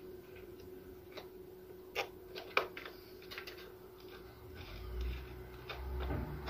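Light clicks and taps of hands fitting an M.2 SSD and its metal heatsink onto a PC motherboard, with a few sharper clicks about two seconds in and low handling rumble near the end, over a faint steady hum.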